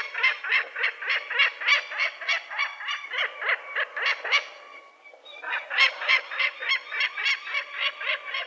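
A flock of waterfowl calling in rapid honks, about four a second, in two bouts with a short lull in between.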